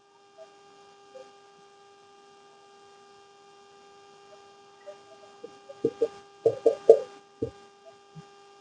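Steady electrical hum. From about five seconds in come a string of short blips, around eight quick key presses: a calculator being keyed in.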